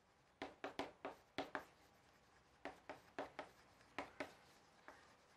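Chalk writing on a chalkboard: faint short taps and scrapes of the chalk, coming in quick clusters of strokes with brief pauses between words.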